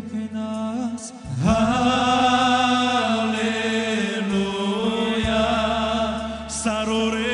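Men's vocal group singing a worship song in harmony through microphones, with long, drawn-out notes that waver in pitch. It starts softer and swells louder about a second and a half in, over steady low accompaniment notes.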